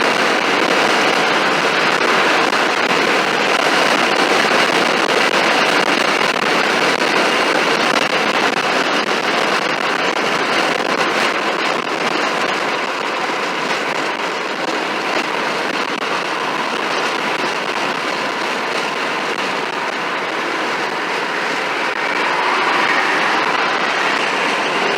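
Steady rushing noise of a moving vehicle, even throughout, with no distinct engine note or horn standing out.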